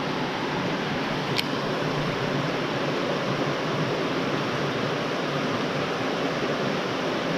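Shallow rocky creek riffle running steadily, a constant rush of water over stones. One short sharp click about a second and a half in.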